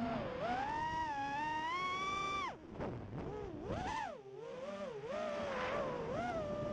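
Five-inch FPV quadcopter's EMAX RS2205-S 2300KV brushless motors and three-blade props whining, heard from the onboard camera. The pitch climbs for about two and a half seconds, drops sharply as the throttle is chopped, then swoops up and down with quick throttle punches and chops.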